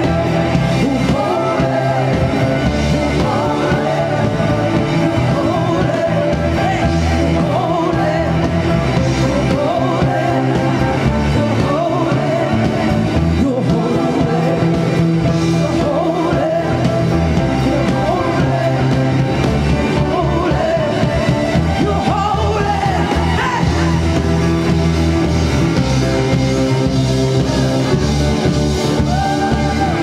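Live worship band playing a rock-style song: a vocalist singing over drums, electric and bass guitars and keyboard.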